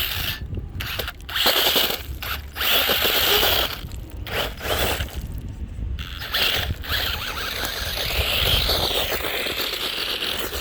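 Electric motor and gears of a radio-controlled toy car whirring and grinding in several bursts, stopping and starting; the back wheels aren't pushing.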